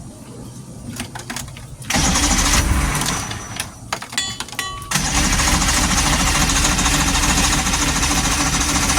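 Boat engine being started after its leaking fuel pump was replaced: a few clicks, then the engine catches about two seconds in and falters. About five seconds in it fires again and keeps running steadily.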